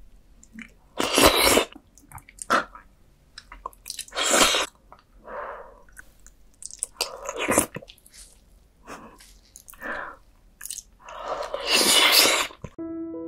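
Close-miked eating sounds of a person eating soft roasted beef bone marrow off a spoon: wet chewing and mouth noises in a series of separate bursts, the loudest about a second in, about four seconds in, around seven and a half seconds and around twelve seconds. Piano music comes in at the very end.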